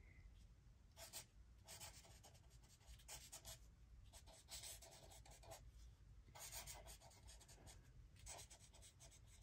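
Faint scratching of a pen writing on a paper note card, in short, uneven strokes as words are written out by hand.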